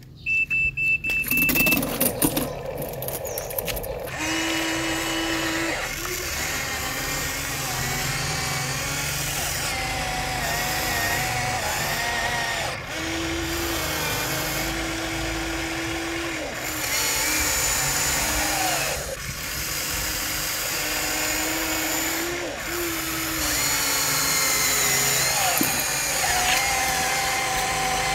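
A small electric motor whining, its pitch wavering up and down, with brief dips every few seconds.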